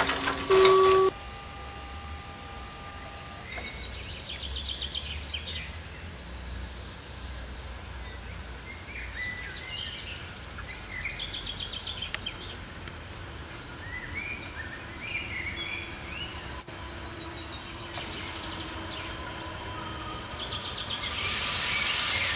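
A level-crossing bell rings with steady tones and stops about a second in. Then birds chirp and sing over a low rumble. Near the end, a DB regional train hauled by a Class 143 electric locomotive rolls into the station with a rising hiss of wheels on rails.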